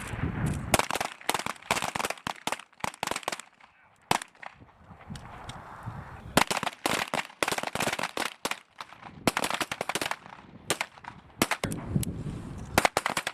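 Several M17/M18 9mm pistols firing at once along a firing line: dozens of sharp shots in an irregular, overlapping patter, with a brief lull about four seconds in.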